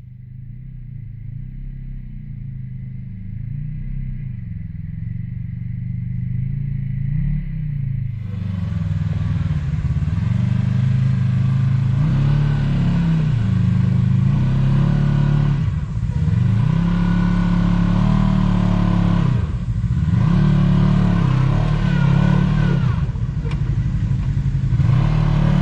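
Side-by-side UTV engine revving up and down again and again while crawling over rocks, growing louder over the first several seconds. About eight seconds in the sound turns much brighter and fuller.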